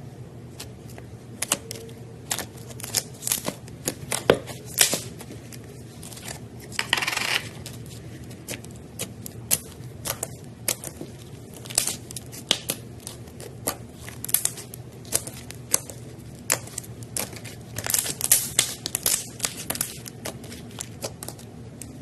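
Slime being squeezed and stretched by hand, giving irregular sharp clicks and pops from trapped air. About seven seconds in there is a short tearing rasp, and the pops crowd together near the end.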